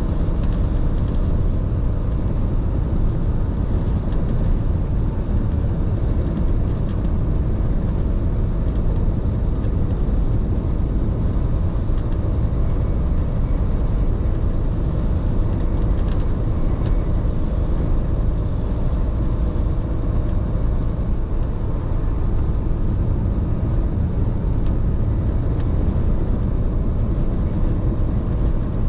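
Steady driving noise of a large truck on the road: engine and road rumble, heavy in the lows, with a faint steady hum in the middle.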